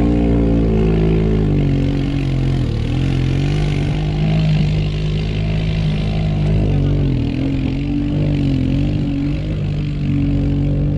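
ATV engine revving hard under load in a mud drag, its pitch dipping and climbing again several times as the throttle is worked.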